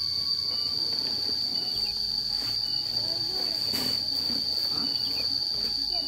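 Steady high-pitched insect drone, one unbroken shrill tone, with faint low sounds under it.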